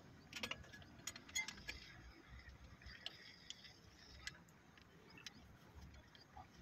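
Faint scattered metallic clicks and clinks, a quick cluster in the first two seconds and a few single ones after: a metal band-type filter wrench being handled and fitted around a spin-on transmission filter to tighten it.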